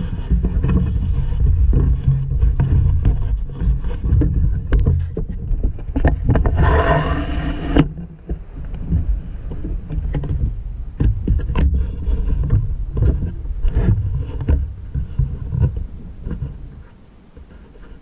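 Thunder rolling: a long, loud, deep rumble with crackles through it. A sharper burst comes about seven seconds in, and then it slowly dies away near the end.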